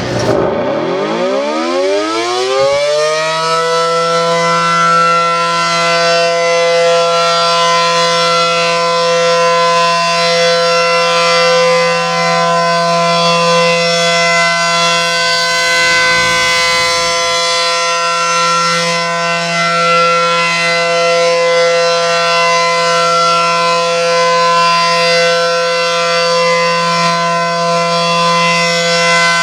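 ACA Allertor 125 tornado siren winding up from rest, its pitch rising steeply over the first three or four seconds, then holding a steady wail at full speed for a test. The loudness swells and fades gently every few seconds.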